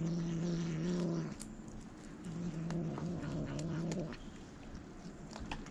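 A cat growling low and steadily over the fish it is eating, a food-guarding warning: one growl trailing off about a second in, a second long growl from about two to four seconds in. Short clicks of chewing follow.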